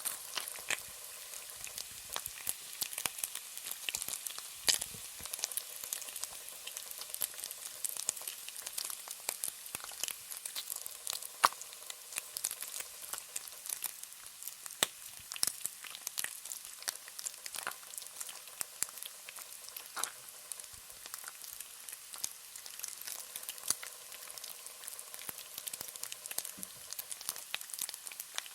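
Bacon frying in a pan: a steady sizzle with frequent sharp crackles and pops scattered at random, a few of them louder.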